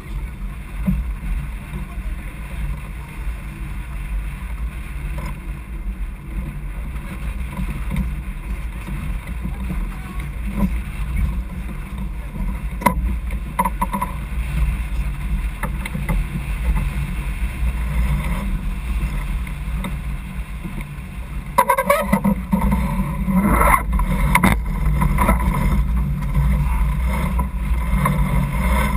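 Sailboat under sail, heeling and making way: a steady low rush of wind on the microphone and water along the hull. A few sharp knocks and clatters from gear on deck come about three-quarters of the way through.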